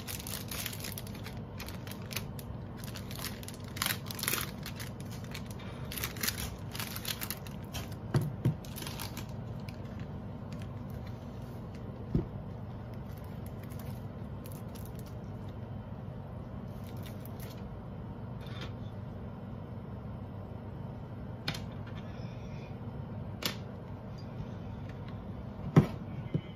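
Plastic wrapping and protective film crinkling and rustling as they are handled and peeled off a hard-shell tablet keyboard case, with dense crackles at first that thin out to occasional clicks and taps of the case; one sharp click near the end as the case is opened. A steady low hum runs underneath.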